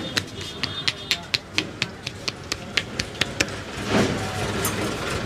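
Rhythmic percussive massage: hands striking the body in quick, even slaps about four times a second, then a brief rushing noise about four seconds in.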